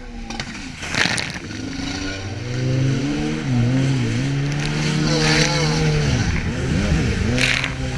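Jet ski engine running at speed across waves. Its pitch climbs a little over two seconds in, then wavers and dips as the craft rides over the chop. Short splashes of water hiss through about a second in, around five seconds and near the end.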